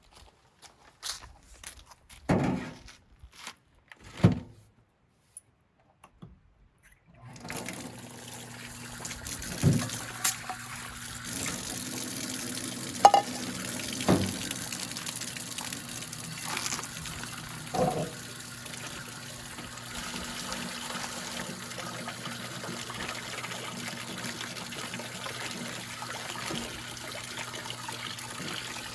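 A few soft handling knocks, then about seven seconds in water starts running steadily and keeps going, with an occasional knock.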